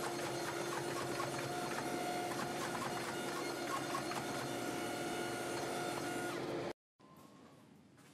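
Forge running: a steady blower-and-burner hum with a couple of held tones and faint ticks over it, cutting off suddenly near the end, after which only a quieter room sound remains.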